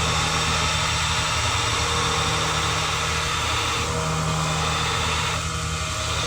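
Belt grinder running steadily, a motor hum under a broad hiss, as a forged steel knife blank is ground to profile; the hiss thins for a moment about four seconds in and again near the end.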